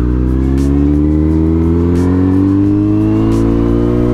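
2018 Kawasaki Z900's inline-four engine pulling steadily in gear under acceleration, its note rising smoothly and evenly.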